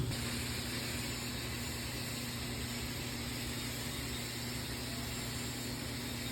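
Stick-welding arc burning an E7018 rod on a cap pass of a pipe joint: a steady crackling hiss with a faint low hum under it.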